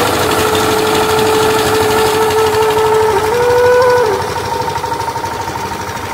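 An engine-driven machine running with a dense, steady noise, overlaid by a melody of long held notes that step up and down. About four seconds in the machine noise drops a little and starts to pulse.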